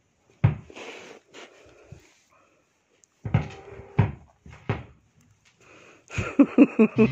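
A dog playing with a toy on carpet: a few dull knocks, one about half a second in and three more close together between three and five seconds in. Near the end comes a quick run of short pitched pulses.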